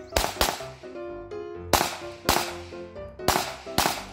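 Glock 17 9mm pistol fired six times in three quick pairs, each pair of shots well under a second apart. Background music plays throughout.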